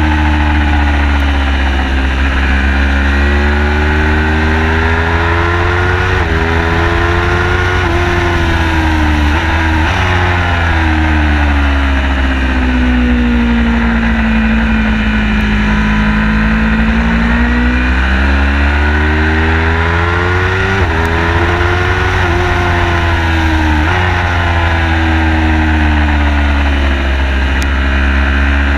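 Car engine during a hard track lap, its pitch climbing under acceleration and falling away into corners, with sudden jumps at gear changes, over a constant heavy low rumble.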